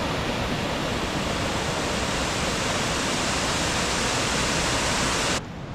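Water of Kravica Waterfall rushing down the falls in a steady, loud, even noise. It cuts off abruptly just before the end, leaving a quieter background.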